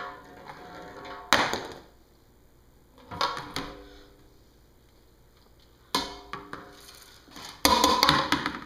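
Small objects knocking and sliding on a glass tabletop: five separate clatters, each ringing briefly, the loudest and longest near the end.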